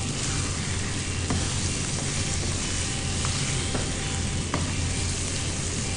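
Pieces of country chicken sizzling in hot oil in a frying pan, stirred with a spatula, with a few light taps of the spatula against the pan.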